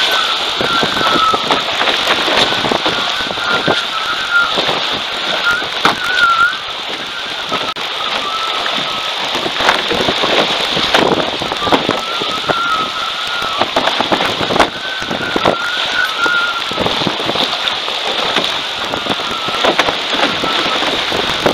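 A-Class catamaran sailing fast, flying on its foils: a steady rush of water and spray against the hulls with wind buffeting the camera microphone and many short slaps. A thin wavering high whistle comes and goes several times.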